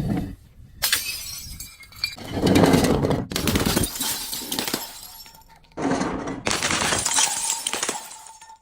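Glass bottles breaking and shattering, several separate breaks in quick succession, each starting suddenly with a crackly spray of shards, one with a faint ring of glass near the end.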